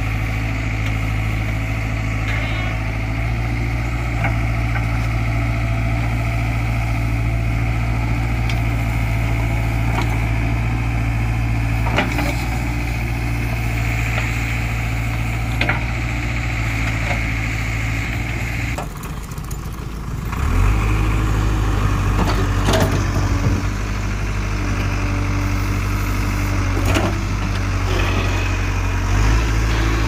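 JCB 3DX backhoe loader's diesel engine running steadily as the backhoe digs, with a few sharp clanks from the bucket and arm. About two-thirds of the way in the engine sound dips briefly, then comes back louder.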